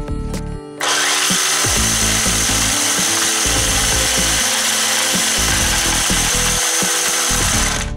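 RC Polaris Rush Pro-R snowmobile's electric motor and track running flat out while the machine is held down: a loud, steady whirring with a high whine, starting suddenly about a second in and cutting off just before the end.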